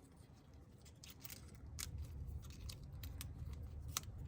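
Scattered small sharp clicks of a repair tool working on a smartphone's ribbon-cable connectors as they are unclipped, over a low hum that grows louder about two seconds in.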